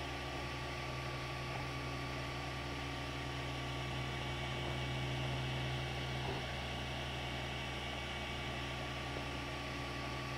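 3D printer running while it lays down plastic: a steady hum of its fans and motors over an even hiss.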